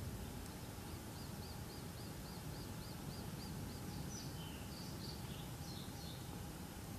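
Outdoor ambience: a steady low rumble with small birds chirping faintly. In the first three seconds there is a quick run of short repeated notes, about four a second, followed by scattered single chirps.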